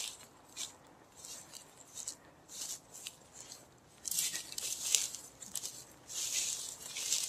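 Dry grass and brush swishing and rustling against someone moving quickly through a tall-grass field. Separate swishes come about every half second, then turn into longer, louder rustling from about four seconds in.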